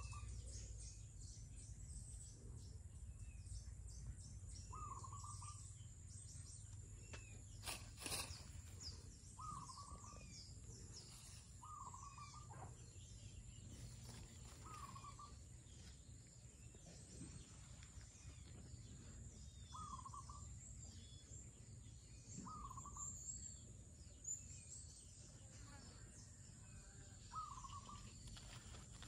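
Faint outdoor birdsong: a bird repeats a short call every few seconds among scattered high chirps, over a steady thin high-pitched whine.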